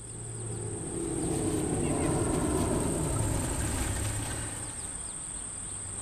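Steady high-pitched chirring of insects, with a low rumble underneath that swells to its loudest a couple of seconds in and then fades.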